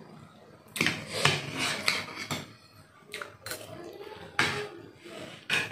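Close-up eating of instant noodles: a string of short noisy bursts as noodles are slurped and chewed, with a fork and spoon scraping and clinking against a ceramic bowl.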